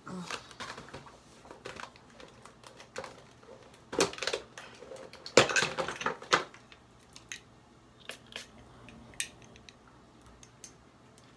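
A plastic gift-set box and its perfume bottles being handled: scattered clicks, knocks and crinkling, busiest about four seconds in and again from about five and a half to six and a half seconds, then sparser.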